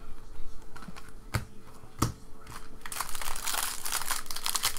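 A few sharp clicks of trading cards being flicked through in the hand. From about three seconds in comes the dense crinkling of a foil card-pack wrapper being handled.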